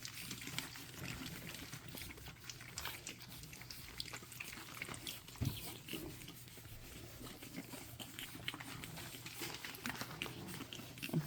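Five-week-old pug puppies making small noises at close range: many faint clicks and ticks, with one short low sound about five and a half seconds in.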